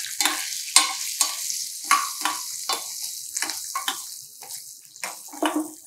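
Tempering (tadka) sizzling in hot oil in a stainless steel pan just after green chillies go in, with a steel ladle stirring and making repeated short scrapes against the pan. The sizzle fades after about four seconds while the stirring goes on.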